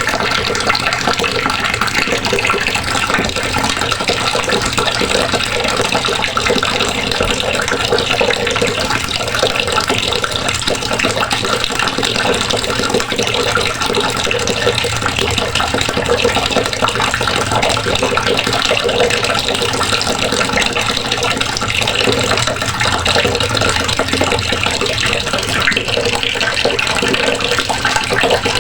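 Water running steadily from a faucet and splashing into the basin below, a continuous even rush.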